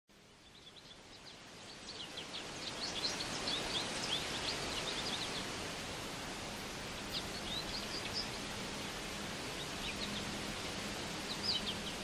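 Nature ambience fading in over the first two or three seconds: small birds chirping in quick scattered calls, thickest in the first half, over a steady hiss with a faint low steady tone underneath.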